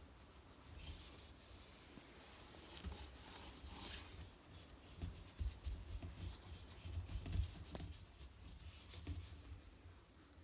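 Faint, irregular rubbing and rustling of a hand working mould-remover gel into a washing machine's rubber door seal, with a few low bumps in the middle.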